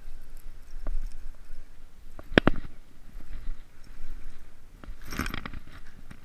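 Low wind rumble on the microphone with scattered sharp clicks and knocks, the loudest about two and a half seconds in and a quick cluster of them around five seconds.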